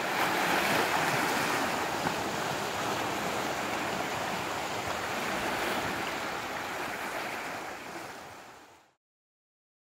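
Small waves washing against shoreline rocks, a steady wash of water that fades out near the end.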